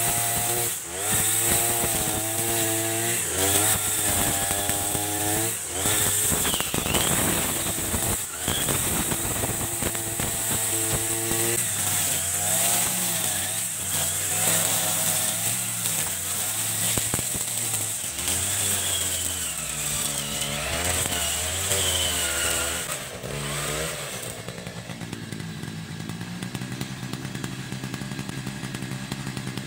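Echo RM435 40cc-class two-stroke brush cutter engine revving up and down as it cuts grass, then dropping to a steady idle about 24 seconds in.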